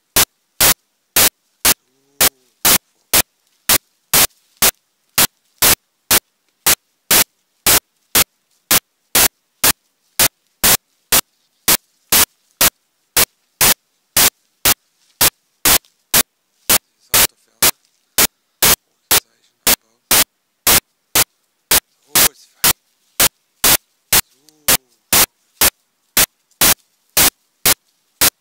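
Bursts of harsh static repeating evenly, about two and a half a second, cut off sharply with silence between: a digital glitch in the recording, not a sound of the scene.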